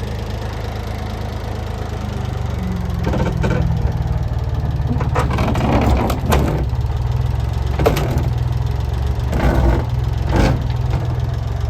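Engine of a loader running steadily and pulling harder as its bucket lifts, with several sharp metal clunks and knocks along the way.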